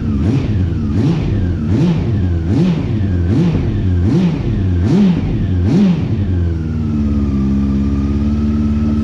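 Honda CB400 inline-four engine being blipped, about eight quick revs and drops in a row, then settling to a steady idle about two-thirds of the way in. It is running again after a new fuel pump, on all four cylinders and smooth.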